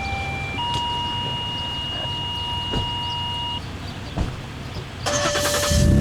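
Paging alert tones that signal the siren is about to sound: a short lower steady tone, then a higher steady tone held for about three seconds. About five seconds in, a third, lower tone starts with a loud hissy burst over it. A steady low rumble runs underneath.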